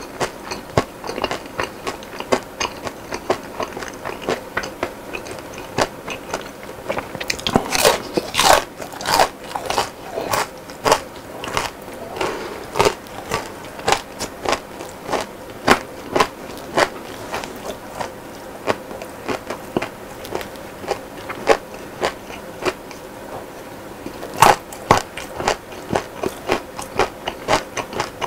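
Close-miked mouth sounds of a person biting and chewing crispy fried food: a steady run of crunchy, wet chewing clicks, with bursts of louder crunching about eight seconds in and again near the end.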